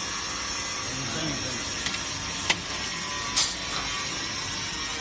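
Handheld pneumatic rivet gun setting rivets in a metal ladder frame: a few sharp snaps, the loudest about three and a half seconds in, over a steady workshop hiss.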